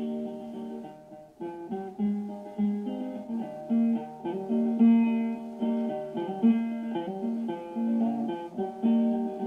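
Acoustic guitar strumming and picking a folk tune as an instrumental passage without singing, with a brief drop in level about a second in.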